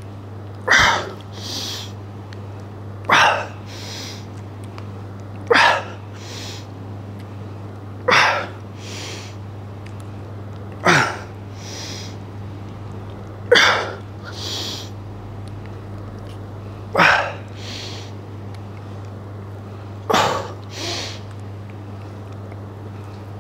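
A man's sharp, forceful breaths out, one with each rep of an overhead cable biceps curl, each followed by a softer breath in; eight in all, the gaps lengthening from about two and a half to over three seconds. A steady low hum runs underneath.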